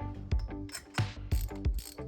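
Background music with a steady beat, with a ratchet wrench clicking over it in two short spells in the second half.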